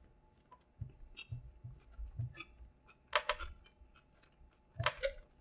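A person chewing a mouthful of crispy fried chicken sandwich: soft, rhythmic low thuds of chewing with small wet mouth clicks, and two louder crunchy clicks about three and five seconds in.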